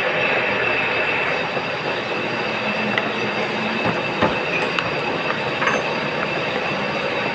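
Metal lathe running while turning a shaft: a steady machining noise with a high, thin whine and a few scattered ticks.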